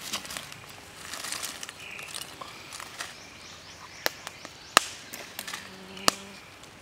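Small wood and charcoal campfire burning, with a few sharp cracks and clicks in the second half, the loudest about five seconds in.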